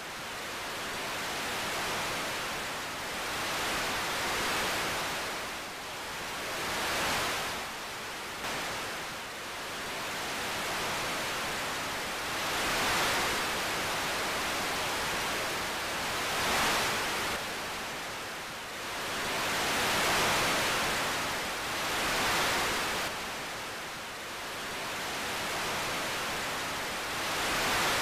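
Surf breaking and washing onto a beach: a rushing hiss that swells and falls away every three to four seconds.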